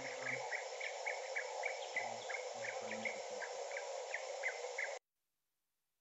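Playback of a bird field recording's background: a steady hiss with a regular series of short, high chirps, about three to four a second, the part of the recording called a lot of noise. The playback cuts off suddenly about five seconds in.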